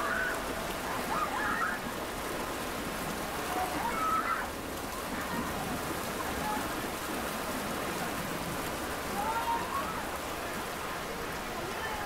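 Floodwater pouring through a ruptured levee, a steady rushing, watery hiss. Short distant calls or voices rise above it now and then.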